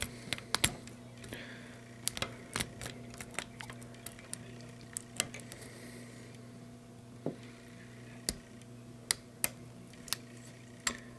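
Lock pick and tension wrench clicking and scraping in the keyway of an old US Eagle government padlock: irregular sharp metallic ticks, one or two a second, as the pins are picked. A faint steady hum runs underneath.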